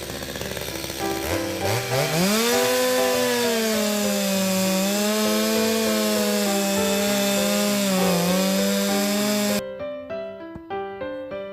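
Chainsaw idling low, then throttled up about a second in to a steady high-pitched run while cutting wood. Its pitch dips briefly near the end, and it stops abruptly.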